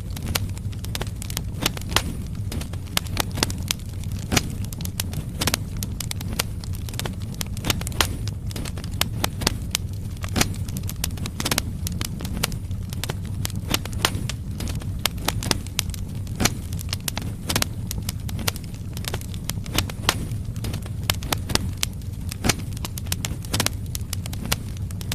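Firewood logs burning in a fireplace: a steady low rumble of flames under a constant irregular crackling of sharp pops and snaps.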